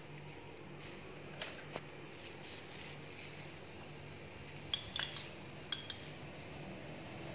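Cutlery clinking lightly against ceramic dishes: two small clicks about a second and a half in, then a quick cluster of short ringing clinks around five seconds in, over a low steady hum.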